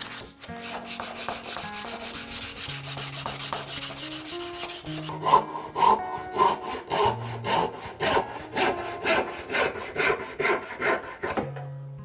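Sandpaper rubbing quickly over a small hardwood knob. About five seconds in, a brass-backed saw starts cutting through a wooden dowel, in steady strokes a little over two a second that are louder than the sanding.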